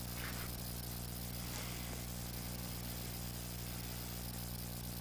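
A steady low mechanical hum from a running motor or engine, with a faint brief rustle near the start.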